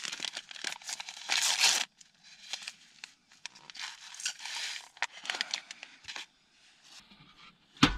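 Irregular crinkling and rustling of something being handled and rummaged through, in short uneven bursts; the loudest rustle comes about one and a half seconds in.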